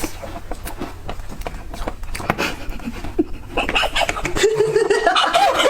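A dog panting in quick, rhythmic breaths, with a voice coming in about four and a half seconds in.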